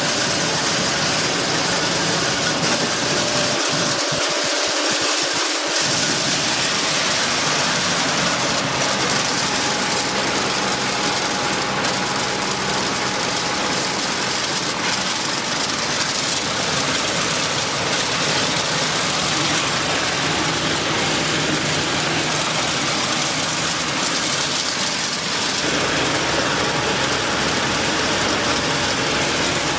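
Maize grits and flour milling machinery running steadily: a loud, even mechanical noise with a faint steady hum, its texture shifting slightly about 25 seconds in.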